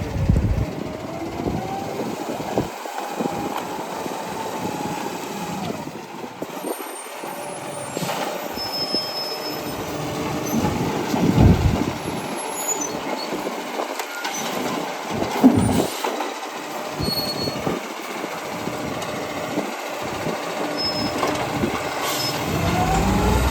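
A garbage truck running, with a couple of louder moments about halfway through.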